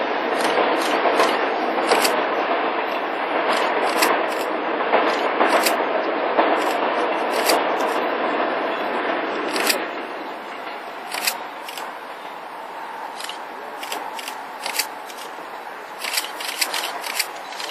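Korail Mugunghwa passenger train running on the rails, its wheel and track noise dropping off about ten seconds in as it moves away. Sharp clicks and scrapes come scattered throughout.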